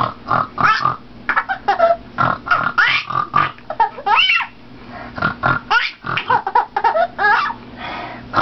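Pet bird laughing: a rapid string of short chuckling calls, several a second, some rising and falling in pitch.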